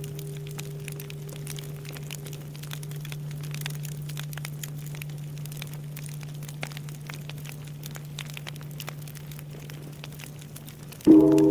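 Bonfire crackling and popping under the long, low hum of a large Japanese temple bell (bonshō) dying away. Near the end the bell is struck again, a loud sudden stroke that rings with several tones.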